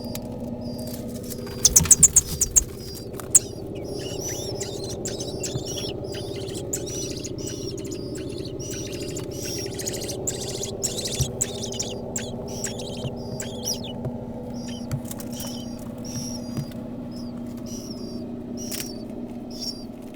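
Nestling songbirds chirping, many short high calls in quick succession over a steady low hum. A burst of loud clicks comes about two seconds in.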